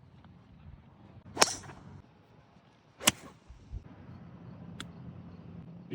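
Two sharp cracks of a golf club striking a ball, about a second and a half apart.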